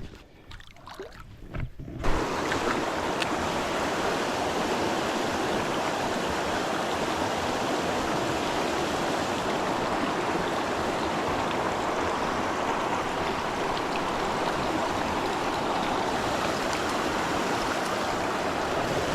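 Steady rushing of river water that starts abruptly about two seconds in, after a quieter moment with a few faint clicks.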